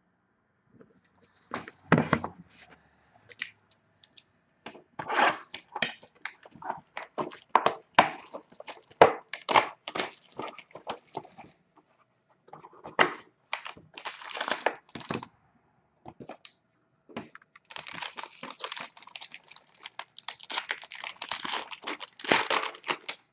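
Hands tearing open and crinkling the wrapping of a sealed hockey trading-card box: bouts of short rustling tears separated by brief pauses.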